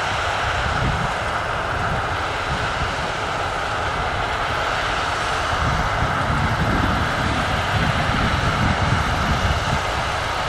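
Case IH 9230 combine harvester's diesel engine and threshing machinery running steadily under load while cutting wheat: a constant mid-pitched drone over a low rumble that swells a little past the middle.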